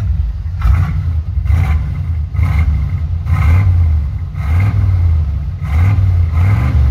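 1986 Ford F-200 pickup's engine running through its headers and original exhaust pipes, blipped about once a second, each rev rising and dropping back to a deep idle.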